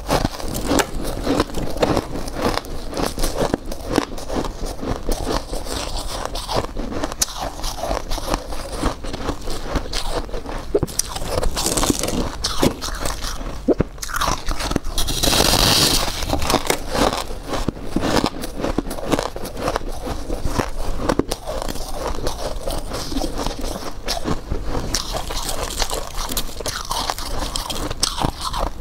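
Close-miked biting and chewing of refrozen freezer frost chunks: a dense, continuous run of crisp crunches and crackles, with a louder, hissier stretch about halfway through.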